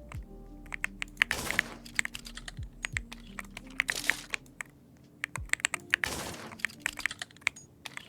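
Keyboard keys clacking in quick, irregular runs, with a short rushing noise about every two seconds.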